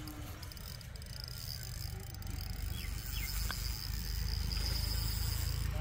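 An insect buzzing as one steady, high-pitched drone, over a low rumble that grows louder about two seconds in.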